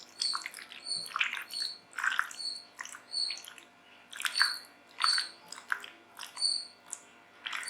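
Fish pieces being mixed by hand in a thick wet masala batter, with soft squelching strokes about once or twice a second. A short, high chirp repeats steadily about twice a second behind it.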